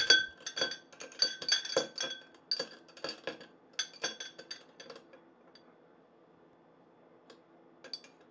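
Stainless steel straws ruffled in a drinking glass, clinking against the glass and each other with a bright metallic ring, the sound that marks them as metal rather than plastic. The clinks come thick and fast for about five seconds, then two lone clinks near the end.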